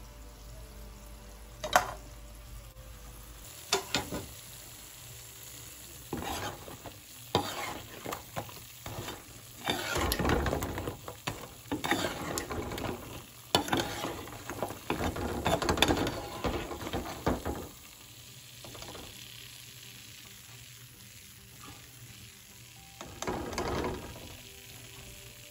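A metal slotted spoon clinks and scrapes against a wok while stirring and lifting jilabis in sugar syrup, with wet sizzling. There are a couple of sharp clinks in the first few seconds, and a long busy stretch of scraping and stirring through the middle.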